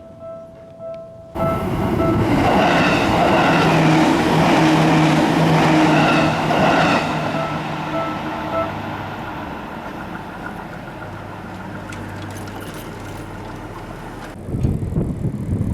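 Japanese level-crossing warning bell ringing in a steady repeating tone. About a second in, a Seibu Tamagawa Line train comes in loud over the crossing, and its running noise slowly fades over the next several seconds while the bell keeps ringing until about halfway through. Wind gusts hit the microphone near the end.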